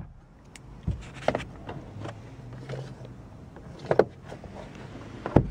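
Clicks and thumps of a car's interior fittings being handled: the glove box lid and the sun visor with its lit vanity mirror cover. The two loudest snaps come about four and five seconds in, over a steady low hum.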